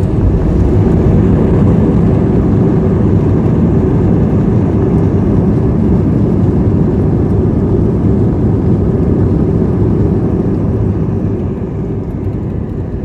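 Airliner cabin noise during landing: a loud, steady low rumble of engines and airflow, easing off a little near the end.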